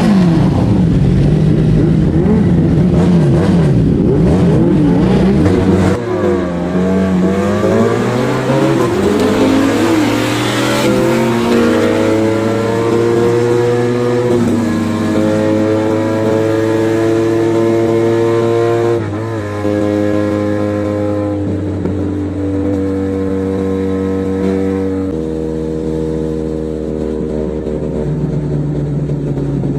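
Motorcycles with aftermarket full-system exhausts riding together. For the first few seconds several engines rev up and down over one another. Then one steady engine note holds, with slow rises and falls in pitch and a few sudden shifts, the clearest about two-thirds of the way through.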